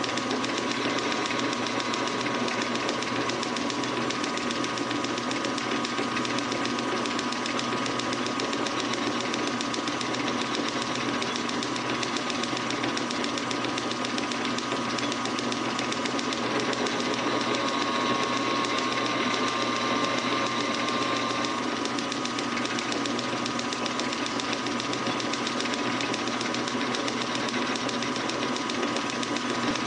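Metal lathe running while a round-nose tool takes a facing cut across a metal pulley blank: a steady mechanical whir with a constant whine, which grows a little stronger for a few seconds past the middle.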